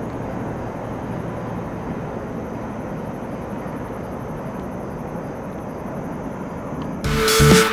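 Steady low vehicle rumble outdoors, with no rise or fall. Electronic music with a heavy beat cuts in suddenly near the end.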